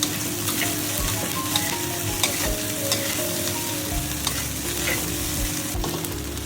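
Rice stir-frying over high heat in a stainless steel pan: a steady sizzle, broken by frequent short clicks and scrapes as it is stirred.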